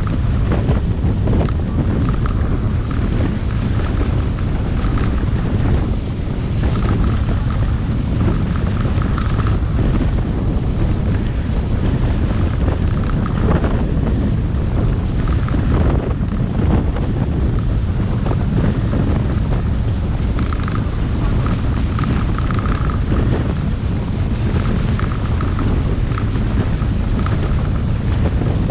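Steady wind rumble buffeting the camera microphone on a moving boat, over the run of the boat and the water.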